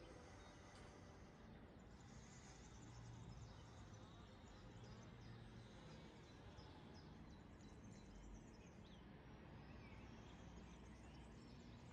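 Near silence: faint outdoor ambient noise with faint, scattered high chirps.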